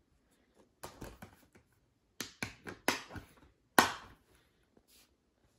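Plastic Blu-ray case being handled and closed: a series of sharp plastic clicks and snaps, the loudest about four seconds in as the case snaps shut.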